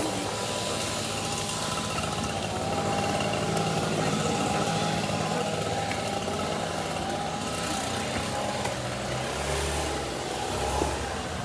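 Outdoor air-conditioner condensing unit running: a steady fan and compressor hum with a thin steady tone above it.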